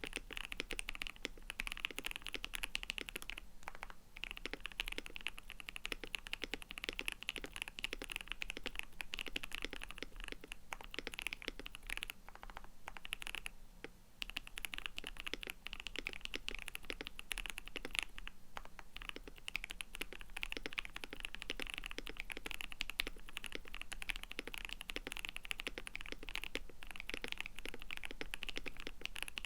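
Continuous fast typing on a KBD67 Lite mechanical keyboard with lubed Durock/JWK Koala tactile switches and thick dye-sublimated PBT keycaps, a dense run of keystroke clacks with brief pauses about 4 and 14 seconds in.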